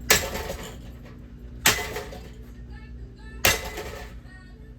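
A ceiling fan being struck hard three times, about one and a half seconds apart, each blow a sharp crack followed by brief ringing.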